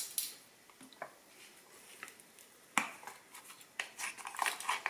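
Small clicks and taps of a measuring spoon and a spice container being handled. A sharp click comes a little before three seconds in, then a quick run of small clinks near the end.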